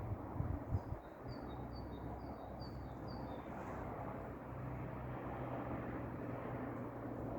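A small bird chirping a quick run of short high notes during the first three seconds or so, over a steady low hum and rumble of outdoor background noise.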